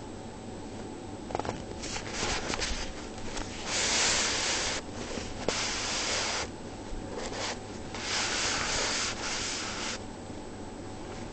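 Rough rubbing, scraping noise in several bursts of a second or two, loudest about four seconds in and again near eight seconds.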